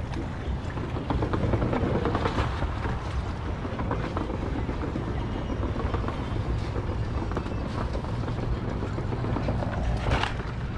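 Wind buffeting the microphone, with footsteps on wooden pier boards.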